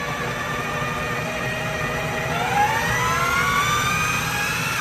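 Electric food processor running, its blade chopping beef and vegetables into dog food. The steady motor whine rises in pitch over the second half and cuts off at the end.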